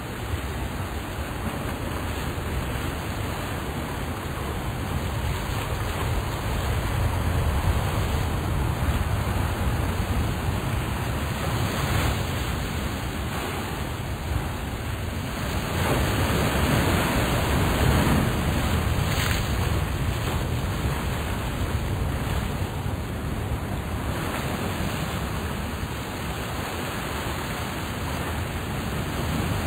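Steady rushing noise with a deep rumble, swelling and easing slowly.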